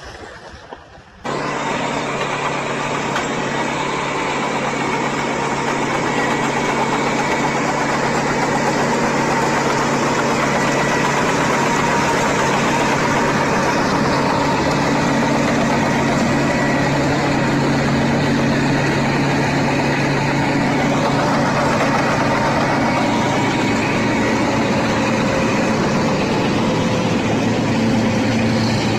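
Heavy truck diesel engine running steadily: a low, even drone over a wide rush of noise that cuts in abruptly about a second in.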